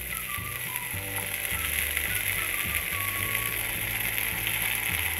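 Masala-stuffed eggplant and potato halves sizzling in a little oil on a hot tawa as they are laid down, a steady frying hiss that grows a little louder after about a second.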